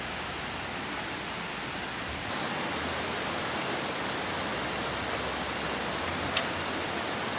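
Steady rushing noise of a waterfall's falling water, with one faint click about six seconds in.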